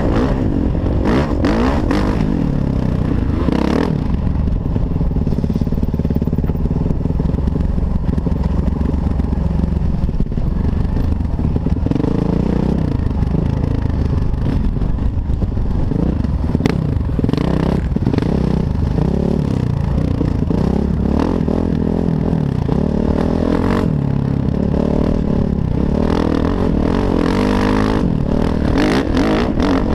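Kawasaki KX450F four-stroke single-cylinder dirt bike engine running under load, its pitch rising and falling with throttle and gear changes. Wind noise on the microphone and rattling of the bike over the rough dirt trail run underneath.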